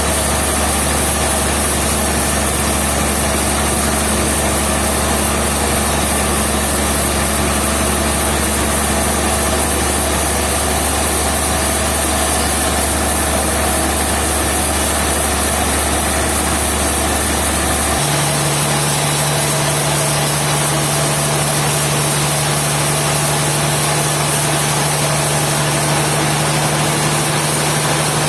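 Sawmill machinery running steadily: an engine-like drone over a hiss. About eighteen seconds in, its low hum switches abruptly to a higher pitch.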